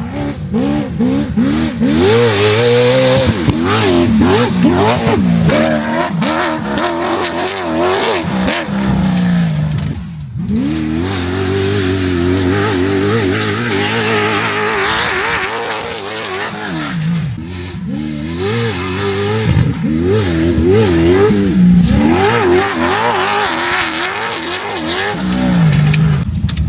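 Off-road race car driven hard around a rough dirt track, its engine revving with the pitch rising and falling rapidly and constantly. The engine briefly drops off about ten seconds in, then picks up again.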